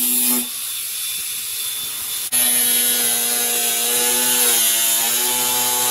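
Cordless angle grinder running at speed and cutting plastic bumper: a steady high whine with a hiss of spray. The whine drops away for a stretch in the first half, comes back suddenly about two seconds in, and sags briefly in pitch about four and a half seconds in as the disc bites.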